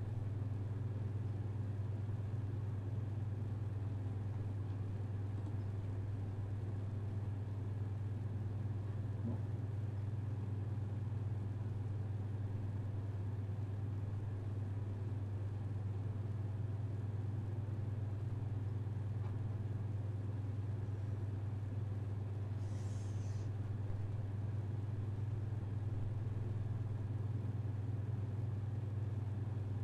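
Steady low hum over a faint hiss, with one short soft hiss about 23 seconds in.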